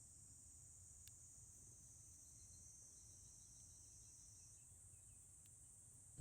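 Faint, steady chorus of insects such as crickets, a continuous high-pitched shrill that never pauses.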